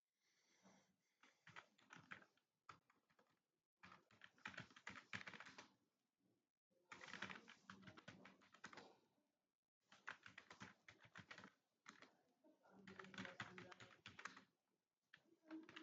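Faint rapid keystrokes on a computer keyboard during a typing test, coming in bursts of one to three seconds with short pauses between them.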